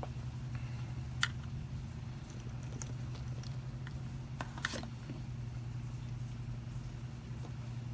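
A few light clicks and knocks of a metal carburetor body being handled and set down on a workbench, the sharpest about a second in and a couple near the middle, over a steady low hum.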